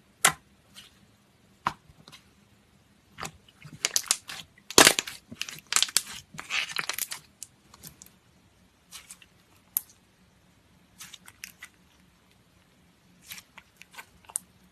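Slime popping and crackling as it is played with by hand: sharp pops, with a dense run of them in the middle and scattered single pops before and after.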